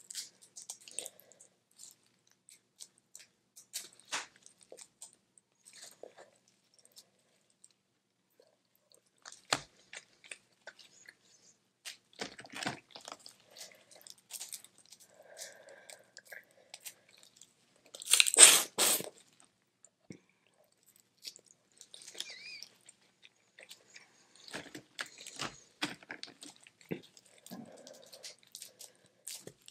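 Close-up eating of boiled crawfish: scattered crunches and crackles of shell being broken and peeled, with chewing. The loudest crunch comes about two-thirds of the way through.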